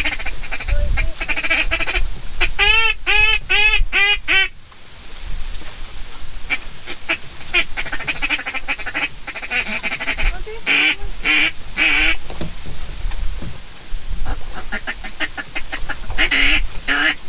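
Duck call blown by a hunter: long runs of quick, short calls, with a string of about six rising-and-falling notes between the second and fifth second.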